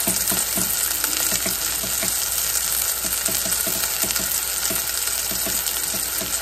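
Oil and rendered beef fat sizzling steadily in the hot pot of a Ninja slow cooker under a freshly seared bottom round roast, with frequent small crackling pops.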